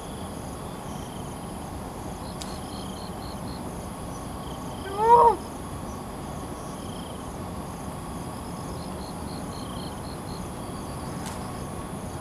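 Steady insect chirring with short repeated chirp trains. About five seconds in comes one loud, short call that rises and then falls in pitch.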